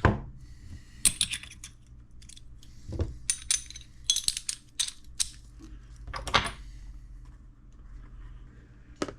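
Small RC crawler wheel and tire parts clicking and rattling as they are handled and fitted, with the silicone inserts being worked into the tires. It comes as a scattered series of sharp clicks and short rattles.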